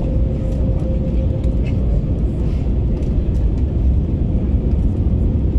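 Airbus A321neo cabin noise on final approach: a steady low rumble of engines and rushing air, with a faint steady hum that fades out about a second and a half in.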